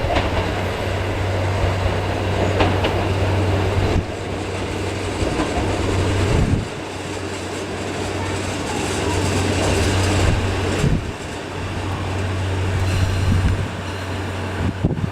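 KiYa 95 diesel measuring train running on the track: a steady low diesel engine hum under rumbling wheel-on-rail noise, with a few sharp clicks.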